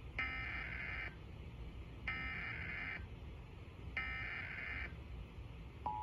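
Emergency Alert System SAME header: three bursts of warbling digital data tones, each about a second long with a second's gap between, encoding a Required Monthly Test alert. Just before the end, the steady two-tone attention signal begins.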